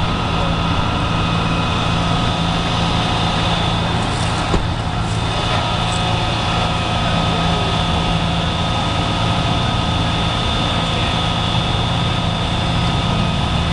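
Heavy emergency vehicles' engines idling steadily, with a single short click about four and a half seconds in.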